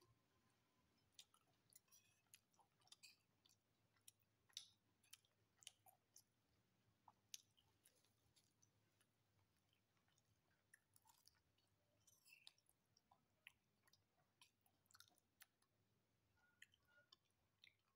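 Faint, close chewing of a mouthful of rice and chicken satay, with many small, sharp, irregular mouth clicks.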